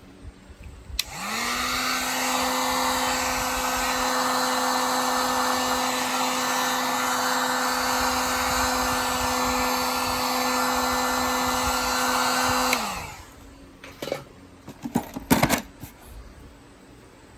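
An electric hot-air blower runs steadily, with a motor hum that rises as it spins up and falls as it is switched off, heating Kydex sheet soft enough to form around the multitool. A few sharp clicks and knocks of handling follow near the end.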